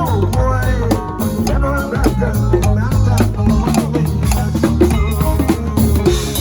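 Live band playing: a drum kit keeps a steady beat under a bass line, with a melody line that bends in pitch above.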